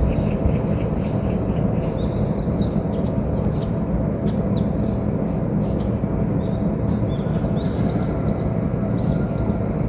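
Forest birds chirping and calling in short scattered notes, over a steady low rumble that is the loudest sound throughout.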